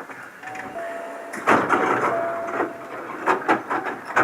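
Two-note falling electronic chime inside a Hankyu train car, sounded twice, with a loud thump about a second and a half in and a few sharp knocks near the end.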